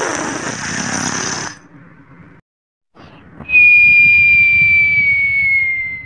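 Comic cartoon-style snore: a rasping snore for about a second and a half, then after a short pause a long high whistle that slides slowly down in pitch.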